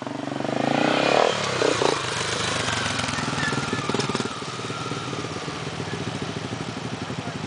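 Dirt bike engines: a quick rising rev in the first second, then running on at a steady, even putter.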